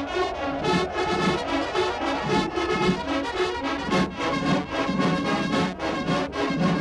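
Title theme music with brass and a steady beat.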